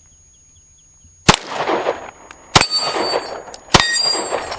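Three gunshots about a second and a quarter apart, the first about a second in. Each is followed by the clang and ringing of a hit AR500 steel target plate.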